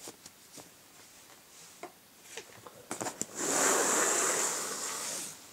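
A few light ticks and clicks of small parts being handled. A little past halfway comes a loud scraping hiss lasting about two seconds: a notebook being slid across a cardboard-covered bench.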